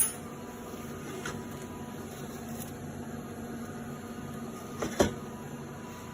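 Steady machine hum, with a sharp click at the start, a couple of faint ticks, and a louder knock about five seconds in.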